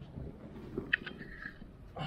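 Low rumble of a loaded furniture dolly's wheels rolling over carpet, with a sharp click a little before a second in.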